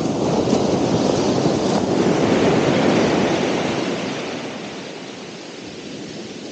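Ocean surf: a wave breaking and washing in, swelling to its loudest in the first three seconds, then easing back as it draws off.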